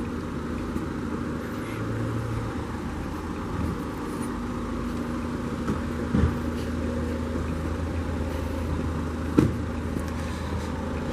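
Street traffic: a motor vehicle's engine running steadily nearby, with two short sharp knocks about six and nine seconds in.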